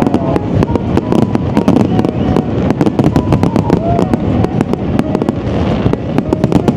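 New Year's Eve fireworks show going off in rapid succession: a dense, continuous barrage of bangs and crackles with no gaps.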